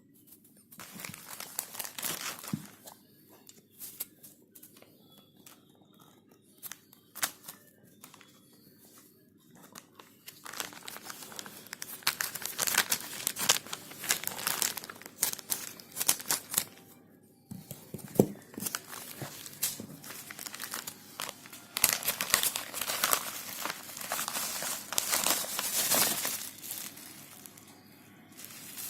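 Plastic courier packaging crinkling and tearing as it is ripped open by hand: irregular crackles and rips, sparse at first, then denser and louder through the second half.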